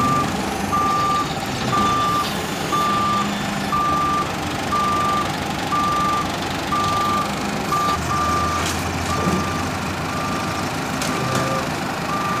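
Reversing alarm on a JCB telehandler beeping steadily, about one half-second beep a second, as the machine backs away from a shipping container. The machine's engine runs underneath and grows a deeper rumble about eight seconds in.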